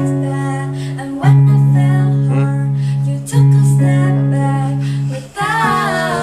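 Electronic keyboard playing sustained chords, a new chord struck about every two seconds. Women's voices come in singing near the end.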